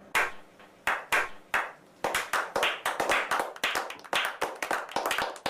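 Hand clapping from a few people, sparse claps at first, then quicker and more continuous from about two seconds in.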